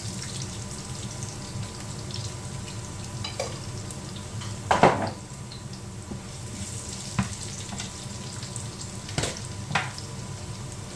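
Onions sizzling in hot oil in a pan, a steady frying hiss, with a few clinks and knocks of utensils or containers, the loudest about five seconds in.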